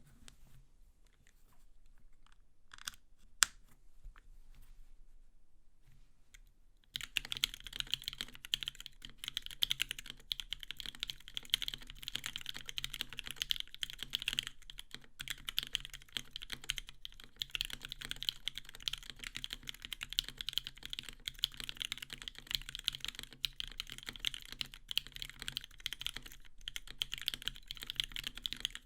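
Typing on a Switch Couture Alice mechanical keyboard with an acrylic case and plate, NovelKey Cream switches lubed and filmed, and GMK keycaps. Quiet at first apart from a couple of single clicks, one of them sharp, then steady, fast typing starts about seven seconds in.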